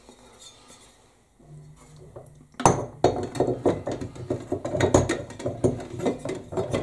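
Metal clinking and knocking as the bench grinder's end cover is worked onto the motor housing. It is mostly quiet at first, then a sharp knock about two and a half seconds in starts a busy run of quick clatter.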